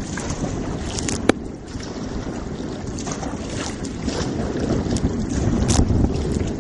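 Strong wind buffeting the microphone over water sloshing and splashing around a sea kayak on rough swell, with scattered short splashes and one sharp knock about a second in.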